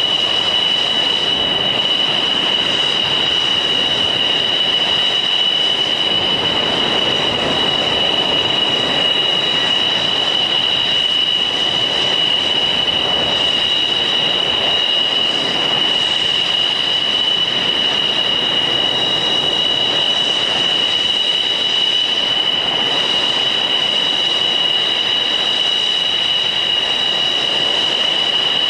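MiG-29's Klimov RD-33 turbofan engines running at ground idle: a steady high-pitched whine in two close pitches over a continuous rushing roar.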